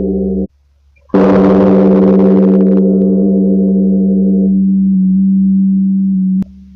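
Bongeunsa's large Buddhist temple bell: a ringing tone stops abruptly half a second in, then the bell is struck again about a second in and rings on in a long humming tone whose upper ring slowly fades, until it cuts off shortly before the end.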